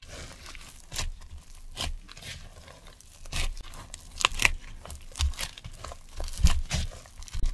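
Gloved hands squeezing and folding soft butter into sticky whole wheat bread dough in a wooden bowl: irregular wet, sticky squelching and tearing of the dough, with a few low thumps.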